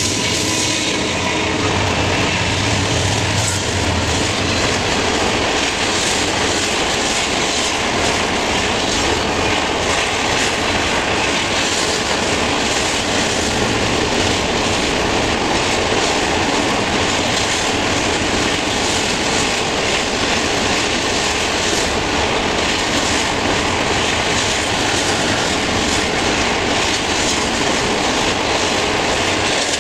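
Norfolk Southern freight train passing. The diesel locomotives' engines drone for the first few seconds, then come the steady rumble and clatter of intermodal cars' wheels on the rails, with a faint steady high whine throughout.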